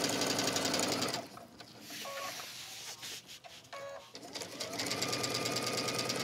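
Brother computerized sewing machine stitching fast through waxed canvas. It stops about a second in while the fabric is pivoted at a corner, with two short tones from the machine during the pause, then starts stitching steadily again a little past the midpoint.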